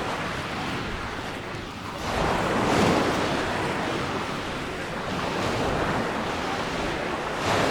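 Sea waves breaking and washing on a beach: a steady surf wash, with one wave swelling louder about two seconds in and another near the end.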